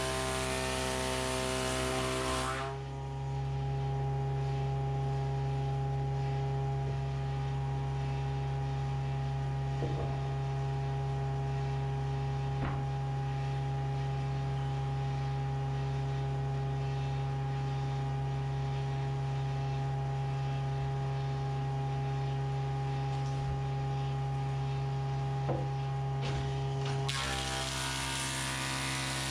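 A woodworking power tool's electric motor running with a steady low hum. For the first couple of seconds and again near the end, a louder rushing hiss joins it, and there are a few faint clicks in between.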